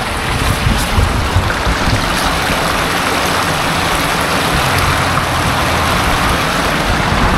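Steady rush of a stream flowing through a tunnel under a highway, with a low rumble underneath.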